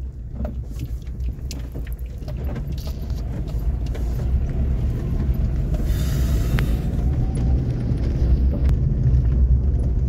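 Car engine and tyre rumble heard from inside the cabin: a steady low rumble that grows louder as the car picks up speed, with small rattles and clicks in the first few seconds.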